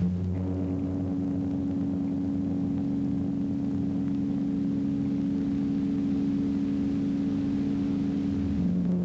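Film accompaniment music: a low, sustained chord of steady held notes that shifts to a different chord near the end.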